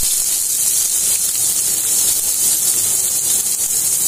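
Chopped onion and green chillies sizzling steadily in hot oil in a kadai, with cumin seeds already fried red.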